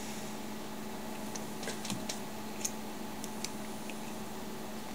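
A few faint, scattered light clicks and taps as a plastic cordless-phone handset is handled and set down on a table, over a steady low background hum.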